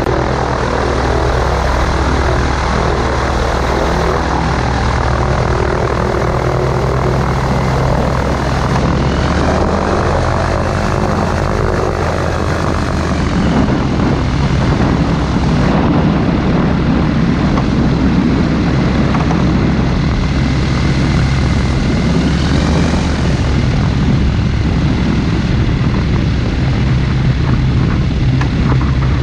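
Flexwing weight-shift microlight's engine and pusher propeller running steadily and loudly, with a rushing haze over it. The engine note changes about 13 seconds in.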